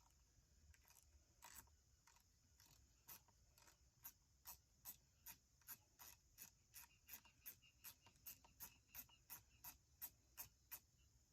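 Faint, short scraping strokes, a few scattered ones at first, settling after about four seconds into a steady rhythm of about three a second.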